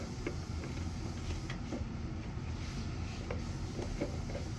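Scattered light clicks and taps of old vacuum cleaner parts being handled and twisted together, over a low steady hum.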